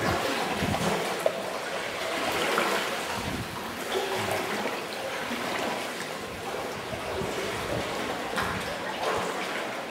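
Sea water sloshing, splashing and gurgling around sea kayaks inside a rock sea cave, with irregular splashes from paddle strokes.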